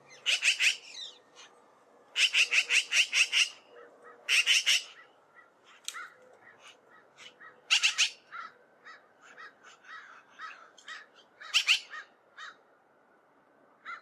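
Eurasian magpies giving their harsh rattling chatter: several bursts of rapid chak notes, about seven a second, the longest lasting about a second and a half near the start, with softer single notes in between.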